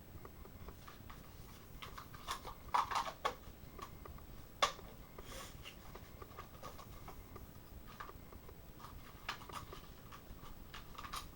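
Hard plastic toy parts clicking and rubbing as large rocket boosters are worked onto the wing slots of a toy jet, with a cluster of sharper clicks a couple of seconds in and a single louder click at about four and a half seconds.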